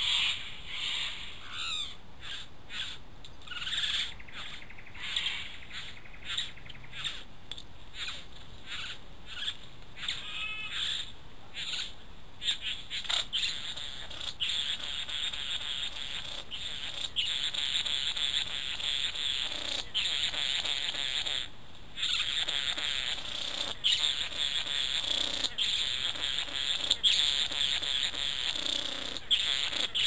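Young green male satin bowerbird at its bower giving a series of short rasping calls and chattering notes, some with quick falling steps, repeated every second or so; a steady hiss comes up underneath about halfway through.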